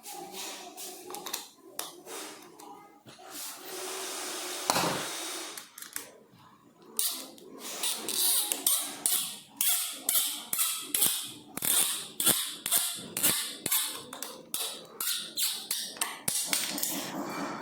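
Hand-tool work on small mechanical parts: scattered clicks and a knock, then from about seven seconds in a long run of short, sharp scraping strokes, roughly one to two a second.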